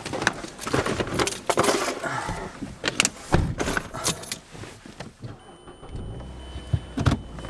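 Keys jangling and clicking with rustles and knocks as someone settles into a car's driver's seat with a cardboard box, then a low steady hum of the car running takes over about five and a half seconds in.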